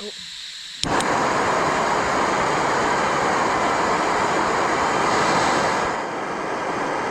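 Small gas-canister backpacking stove lit with a click a little under a second in. The burner then runs with a loud, steady rushing noise that eases slightly near the end.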